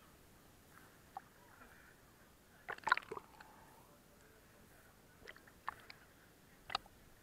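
Swimming-pool water sloshing and splashing right at the microphone, which sits at the water's surface. There is a cluster of splashes about three seconds in and a few single splashes near the end.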